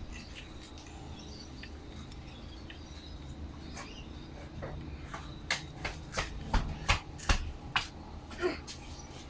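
Hands working on a lawnmower's recoil pull starter as a new starter cord is threaded into the pulley: quiet handling at first, then a quick run of sharp clicks and taps on the hard starter parts.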